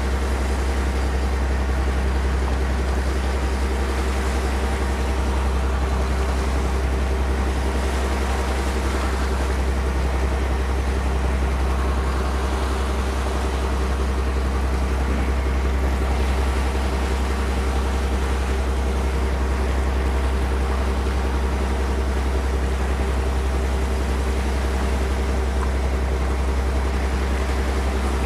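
Wooden fishing boat's inboard diesel engine running steadily under way: a constant low drone with a steady hum above it, and the wash of water past the hull.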